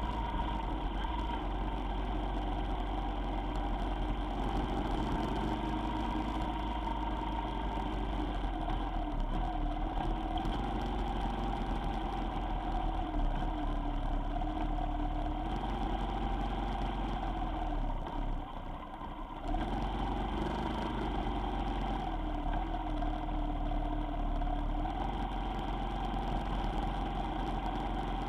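A vehicle engine running while driving on the road, its pitch slowly rising and falling with the throttle, with a brief lull about two-thirds of the way through before it picks up again.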